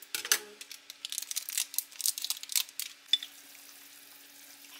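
Pot of seaweed soup boiling: irregular popping and crackling of bubbles for about three seconds, which then gives way to a faint steady hum.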